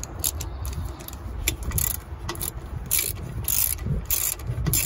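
Socket ratchet clicking in short, uneven strokes with metal scraping and handling, as the nut on a new shock absorber's bottom mount is worked on.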